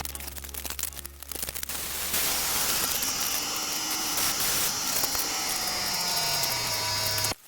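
Film sound effects played through home theatre speakers: a steady rushing hiss with slowly falling tones under it, cut off abruptly near the end.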